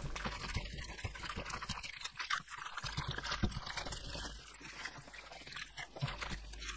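Gloved hands squeezing and kneading fresh sea mustard (wakame) in a steel bowl of water: irregular wet squelches, splashes and drips.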